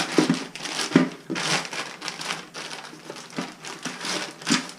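Plastic packaging crinkling and rustling with small clicks as a new Fluidmaster toilet fill valve is taken out and handled.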